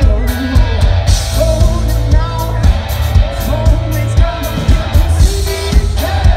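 Two-piece rock band playing live and loud: distorted electric guitar and a driving drum beat, with a voice singing over them.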